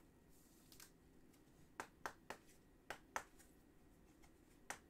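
Faint, scattered sharp clicks, about seven in all, from a trading card being handled in a clear plastic sleeve and rigid top loader.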